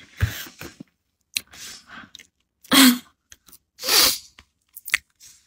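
A woman's breathing and mouth sounds between sentences: a few soft clicks, a short sigh-like sound near the middle, and a loud breathy rush about four seconds in.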